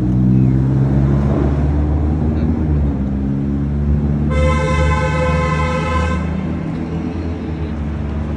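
A vehicle horn sounds once, held for about two seconds midway through, over the steady low rumble of street traffic and running engines.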